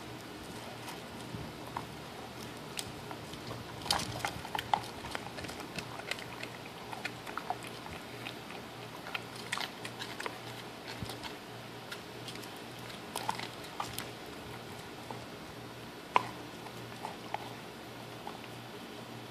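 A dog chewing and gnawing a raw meaty bone, with irregular cracks and clicks of teeth on bone.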